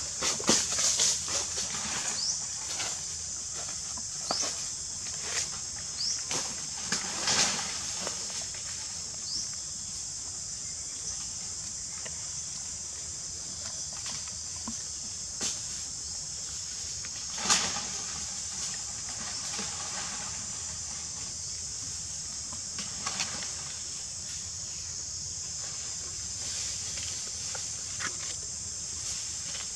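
Outdoor ambience: a steady high-pitched drone with scattered rustles and clicks, busiest in the first eight seconds, and a louder rustle about seventeen seconds in. A few short, high rising chirps come in the first ten seconds.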